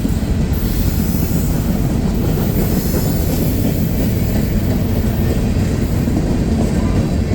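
Freight cars of a slow-moving CSX mixed freight train rolling past: a steady rumble of wheels on rail, with faint high wheel squeal near the start and again about two to three seconds in.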